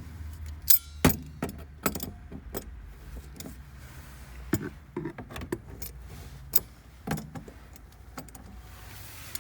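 Scattered metal clicks and clinks of hand tools and fasteners as the nuts on the fuel pump access cover are loosened, one with a brief metallic ring about a second in.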